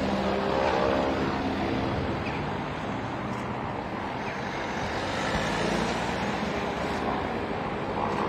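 Road traffic: vehicle engines running and passing over a steady road noise. An engine's hum is stronger in the first couple of seconds and again from about five seconds in.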